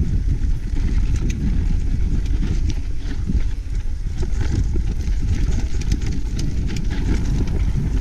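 Mountain bike descending a dirt forest trail: a steady low rumble of tyres on dirt and wind on the microphone, with scattered clicks and rattles from the bike.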